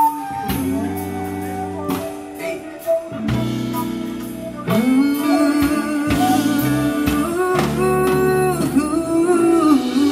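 A live rock band plays a song with electric guitar, bass guitar, drum kit and flute. A man sings lead into a handheld microphone, and the band gets louder from about five seconds in.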